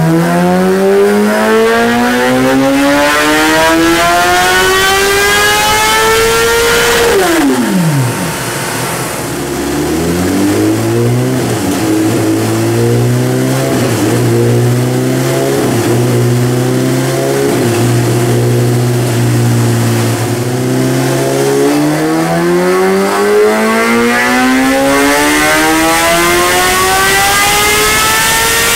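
2016 Kawasaki ZX-10R inline-four running through a Brock's Predator titanium slip-on exhaust with its dB killer fitted, revved on a chassis dyno. The revs climb steeply for about seven seconds, the throttle is shut and they drop away, then the engine runs steadily at a lower speed for about ten seconds. A second pull then climbs to high revs and is chopped right at the end.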